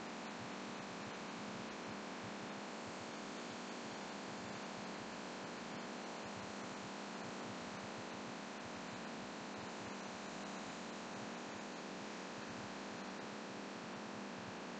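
Steady rushing air and hum of a laminar flow hood's blower forcing air through its filter.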